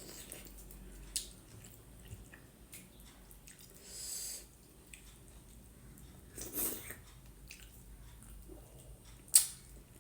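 A person eating soft maize dhido and gundruk soup close to the microphone: quiet wet mouth and chewing sounds with a few sharp clicks, the loudest just before the end.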